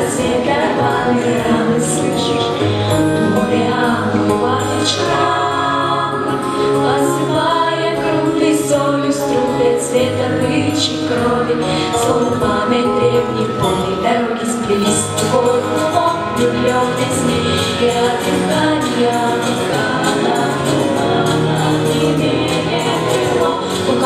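Girls' vocal ensemble singing in harmony over an instrumental accompaniment with light percussion.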